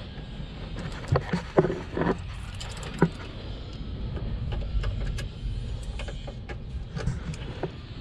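Tool-handling clicks and knocks as test leads and locking pliers are handled against the machine's metal, the sharpest few between one and three seconds in, over a steady low rumble.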